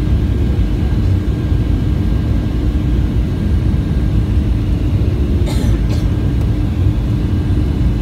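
Boeing 737-800 cabin noise heard from a window seat on the approach: the CFM56 turbofans and airflow make a steady low rumble with a constant hum. There are two brief sharp noises a little past halfway.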